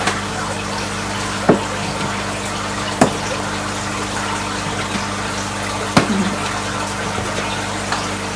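Steady running and splashing water from the koi fry tank's pump and filter, under a low electrical hum. Three sharp clicks stand out, about a second and a half, three seconds and six seconds in.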